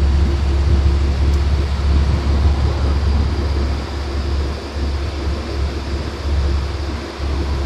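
Cabin noise inside a moving road vehicle: a steady low rumble of engine and tyres on the road, with a faint steady hum over it.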